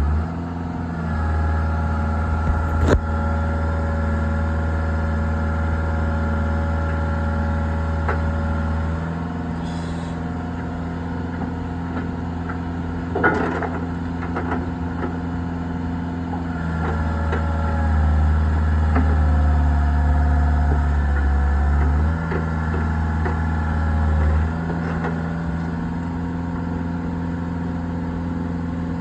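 Skid steer engine running at a steady speed. It gets louder and heavier twice for several seconds as it takes load. A sharp click sounds about three seconds in.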